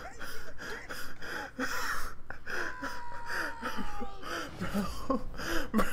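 A man laughing hard and breathlessly, in a rapid string of short gasping bursts.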